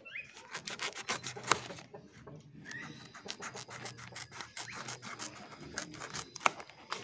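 Small scissors cutting through an aluminium-foil heat-insulation sheet: a run of short, irregular snips and rustles, with two louder snaps about a second and a half in and near the end.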